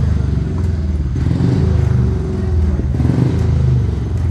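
Speedway motorcycles' 500 cc single-cylinder methanol engines running, the engine note rising and falling.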